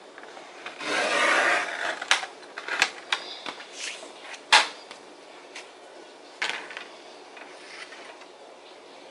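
Sheets of heavy art paper being slid and shuffled on a wooden tabletop: a long papery swish about a second in, then several sharp taps and shorter rustles as sheets are picked up and set down.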